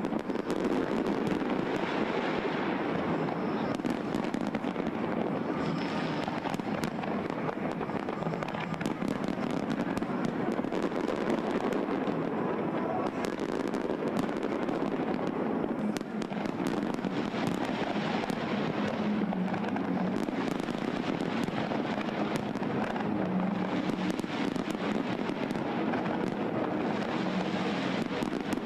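Fireworks display: a dense, continuous barrage of bangs and crackling reports with hardly a pause.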